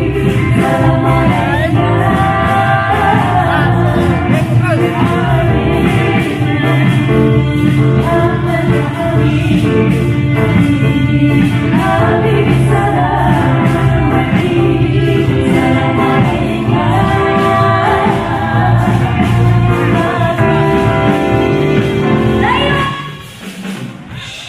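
Live gambus-pop band playing through the PA, with a woman singing the lead into a microphone over keyboard, drums and bass. Near the end the music cuts off abruptly.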